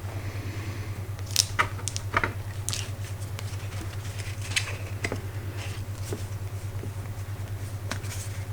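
A steady low pulsing hum, the binaural-beat tone under the reading, with a scatter of sharp clicks and taps from about a second in, from tarot cards being handled.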